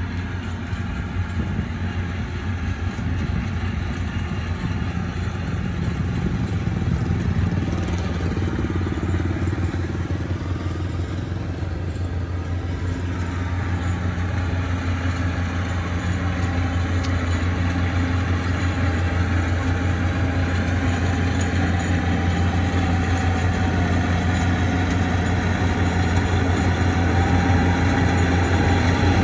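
Yanmar rice combine harvester's diesel engine running steadily while it cuts, a constant low drone that grows gradually louder as the machine comes closer.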